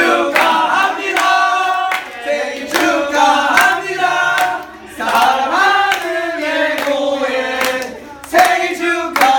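A group of voices singing a song together in held notes, with a few claps.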